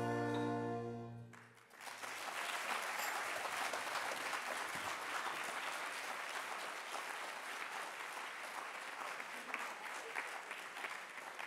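A jazz band's final held chord on saxophones, brass and rhythm section, cut off about a second in, followed by steady audience applause that thins into scattered claps near the end.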